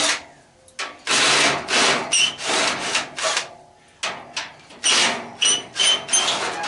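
Repeated rasping and scraping bursts of metal being worked as an old air-conditioner condenser unit is stripped for scrap, with short high metallic squeaks twice.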